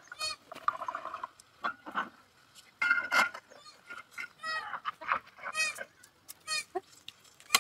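Farmyard poultry calling: a string of short calls, roughly one a second, loudest about three seconds in.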